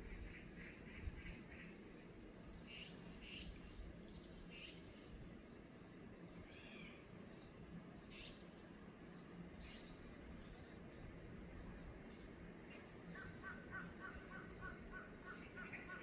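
Faint birdsong in tree cover: scattered short chirps and a high note repeating about once a second, then a quick run of rapidly repeated notes starting near the end.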